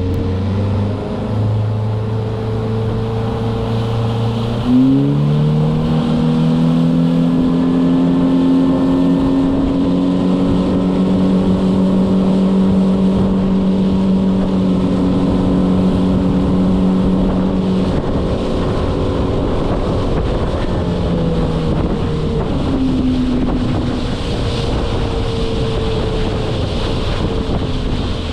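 Fishing boat's motor running and speeding up about five seconds in, its pitch rising. It holds steady at the higher speed, then slows back down a little over twenty seconds in.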